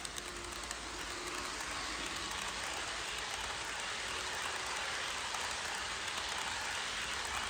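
HO scale Amtrak passenger train rolling past on sectional track: a steady rushing of metal wheels on rail with faint ticking, growing a little louder about a second in as the cars come closest.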